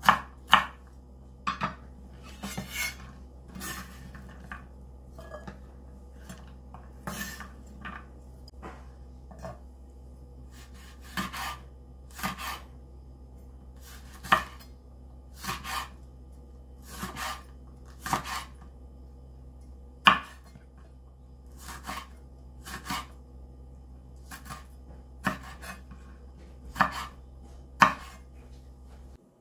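Chef's knife chopping on a wooden cutting board, slicing bell pepper and small red chili peppers: single sharp knocks of the blade on the board at an uneven pace, roughly one a second.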